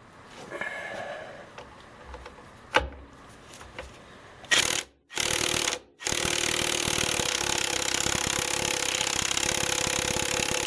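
Harbor Freight 20V cordless 3/4-inch impact wrench hammering on a seized motor mount bolt: two short bursts, then a steady run of about five seconds that stops abruptly. The bolt does not break loose; the hammering only warms the socket. A clunk of the socket being fitted comes a few seconds before.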